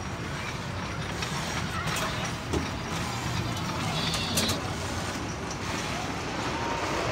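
Small engine of a classic-car amusement ride running with a steady low rumble. There is a brief high squeal about four seconds in.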